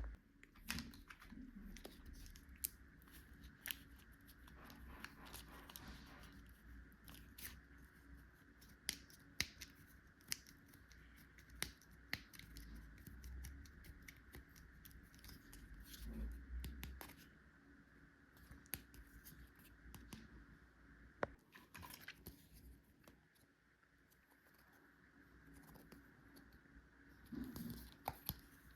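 Faint, irregular clicks and soft rustles of small plastic toy tool pieces and packaging being handled, with a short rustling stretch near the end.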